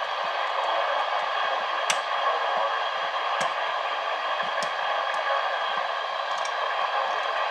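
Steady static hiss from a weather radio receiver with no broadcast voice coming through, broken by a few faint clicks, the sharpest about two seconds in.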